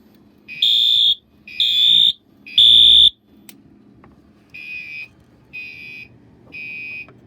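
Fire alarm horns sounding in the temporal-three evacuation pattern: three loud half-second blasts, a pause, then three quieter, lower-pitched blasts.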